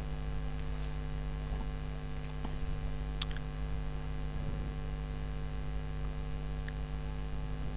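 Steady electrical mains hum, with a single faint click about three seconds in.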